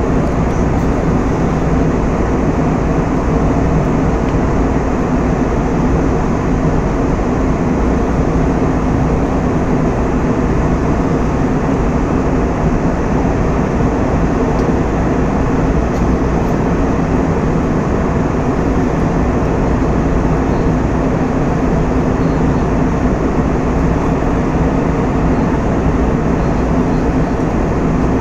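Steady cabin noise of an airliner in cruise flight: the constant, unchanging sound of engines and airflow heard from inside the cabin.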